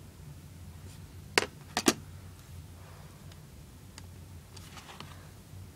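Sharp handling clicks: one, then a quick pair about half a second later, over a low steady hum, with a few faint ticks near the end.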